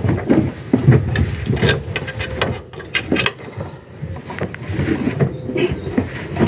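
Irregular knocks, clicks and scraping over a low rumble.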